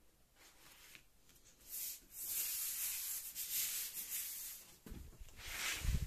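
A sheet of paper rubbing and sliding across a wooden table in long hissing strokes, with a soft thump near the end.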